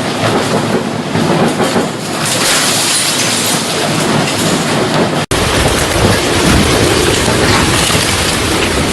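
Typhoon wind and heavy rain: a loud, steady rush of storm noise buffeting the microphone, cut off abruptly a little past halfway and replaced by another stretch of the same storm noise.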